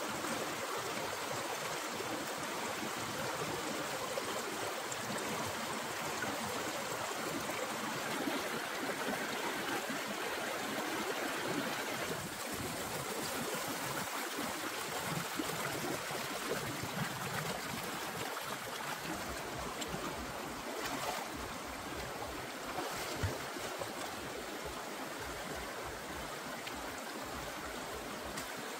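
Shallow rocky stream rushing over stones: steady water noise.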